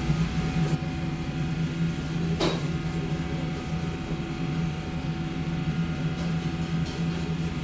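Steady machine hum of a small restaurant's room equipment, such as ventilation or refrigeration, holding several fixed tones. A single sharp click comes about two and a half seconds in.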